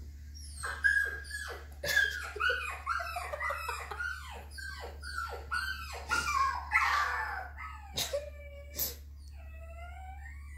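Boston terrier whining and whimpering in a quick run of short calls, each falling in pitch, about two a second. Then come two short sharp sounds and a few longer, higher whines near the end.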